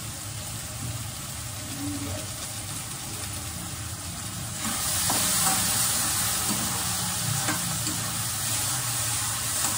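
Seasoned vegetables (onion, carrot, capsicum and tomato) sizzling in oil in a kadhai while being stirred. The sizzle grows louder and brighter about halfway through.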